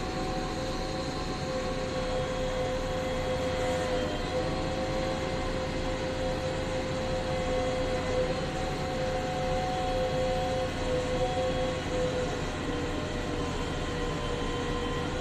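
Electric motors and plastic gearboxes of a radio-controlled toy construction vehicle whining steadily, one unbroken pitched tone with fainter overtones above it.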